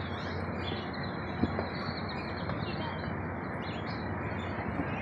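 Steady fairground background din: a low, even rumble with faint high chirps over it and one small click about a second and a half in.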